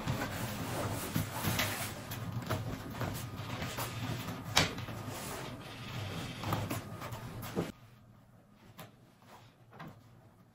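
Clothing rustle from a camouflage jacket being pulled on, with small knocks and one sharp click about halfway through. About three-quarters of the way through the sound drops abruptly to faint rustling and a few light ticks.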